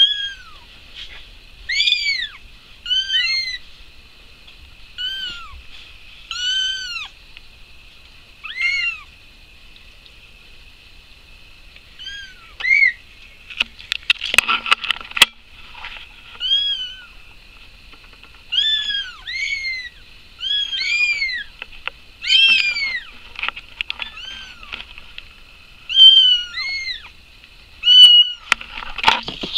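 Young kittens mewing: short, high-pitched mews that rise and fall, repeated every second or two. A scratchy rustle comes in about halfway through and again near the end.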